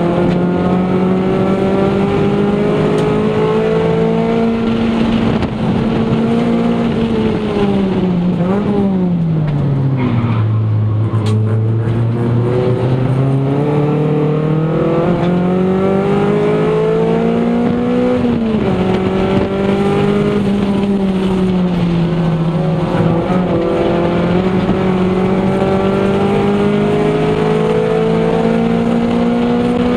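Toyota Celica GT's four-cylinder engine working hard through an autocross run, heard from inside the cabin. Its pitch rises and falls with the throttle: it drops low about ten seconds in as the car slows, climbs again, dips quickly a little past halfway, and falls off right at the end.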